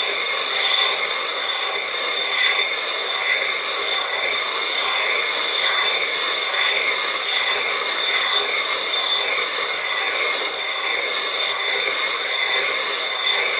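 Vintage Karger lathe turning the edge of a cast iron faceplate with a tool bit: a steady cutting noise over a steady high whine, with a slight rise and fall about once a second.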